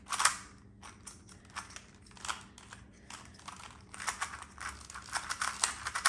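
Plastic 2x2 Rubik's cubes being turned fast by hand, their layers clicking and clacking in quick, irregular runs. There is a sharp clack just after the start, and the clicking grows busier over the last two seconds.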